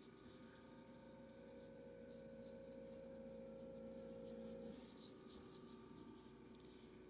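Faint scratching of a paintbrush stroking acrylic paint onto the painting surface, thickest about halfway through, over a steady low electrical hum.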